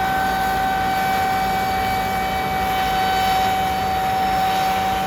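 Combine harvester running steadily at work, with a constant high whine over the engine rumble.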